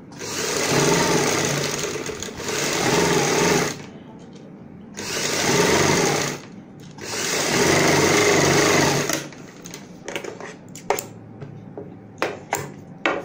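Electric sewing machine stitching in three runs with short stops between them: one of about three and a half seconds, one of about a second and a half, and one of about two seconds. A few light clicks follow near the end.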